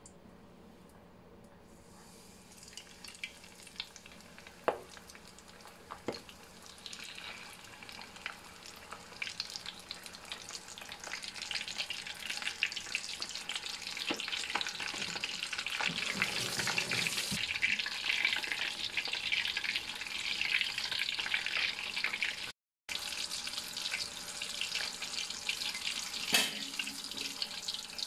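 Breaded shrimp deep-frying in hot oil at about 180 °C: a crackling, bubbling sizzle that starts faint and grows much louder about twelve seconds in, with a couple of sharp clicks around five seconds in.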